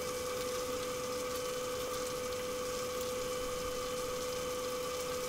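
Chicken wings deep-frying in hot oil in a wok: a steady sizzle of bubbling oil, with a steady mid-pitched hum under it.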